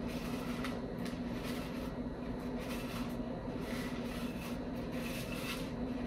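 Loose bird seed rustling and scraping in a bowl as a peanut-butter-coated cardboard tube is rolled through it by hand, in short irregular crackles over a steady low hum.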